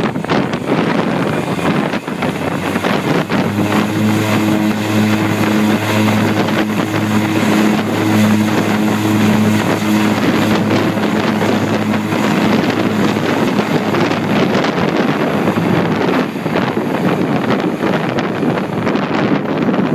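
A de Havilland Canada DHC-6 Twin Otter's turboprop engines powering up for takeoff: a steady propeller hum comes in a few seconds in and fades after about ten seconds as the aircraft rolls away. Heavy wind noise on the microphone throughout.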